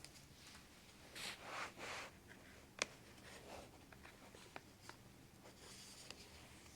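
Faint handling of a laptop: soft rubbing about one to two seconds in, then one sharp click and a few lighter clicks.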